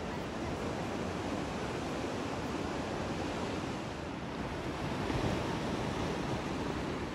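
Ocean surf breaking and washing in a steady rush, with wind noise on the microphone; the rush swells slightly about five seconds in.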